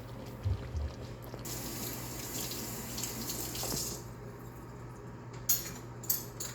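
Water running from a kitchen tap for about two and a half seconds, then turned off, followed by two light knocks near the end.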